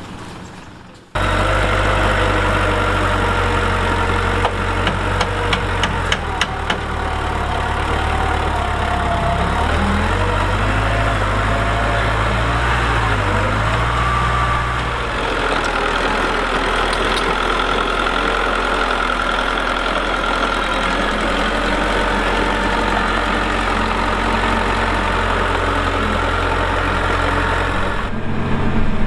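Heavy diesel engine of earthmoving machinery running loud and steady, its pitch shifting up and down under load in the middle stretch. A quick series of metallic knocks comes a few seconds in.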